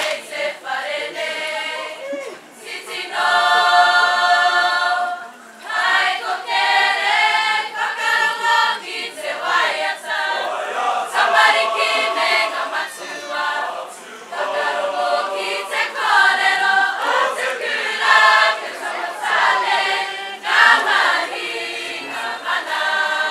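A large group of students singing a Māori waiata together in chorus, in phrases of one to two seconds with short breaks, and one long held note about three seconds in.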